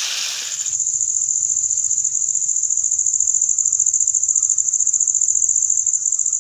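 Fish sizzling in oil on an iron tava, cut off less than a second in. Then an insect's high, steady trill with a fast, even pulse carries on unbroken.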